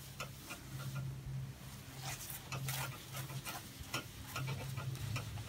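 A gloved hand rubbing a cloth over a wooden bench top: faint irregular swishing strokes with small ticks and knocks, over a low hum that comes and goes.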